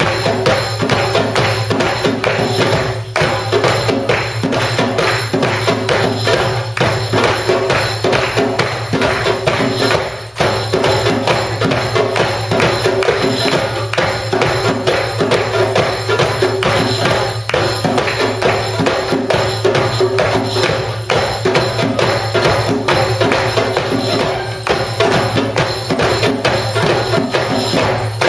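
Live hand-drum ensemble of darbukas (goblet drums) and frame drums with jingles, playing a fast, steady rhythm without a break.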